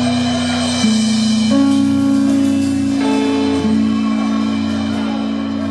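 Live blues band music: held, steady keyboard chords that change pitch a few times, with electric guitar and drums underneath.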